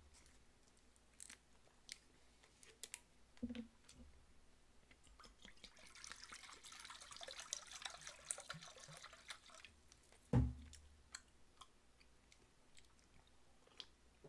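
Makgeolli poured from a plastic bottle into a stainless metal bowl: a steady splashing hiss lasting about four seconds. A few light clicks come in the first few seconds, and a sharp thump, the loudest sound, follows soon after the pour ends.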